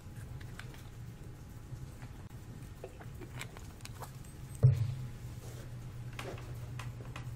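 Quiet lecture-room tone: a steady low hum with faint scattered clicks and one louder knock about four and a half seconds in.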